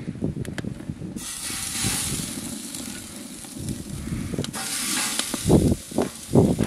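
A steady hiss that starts about a second in, with two dull low thumps near the end.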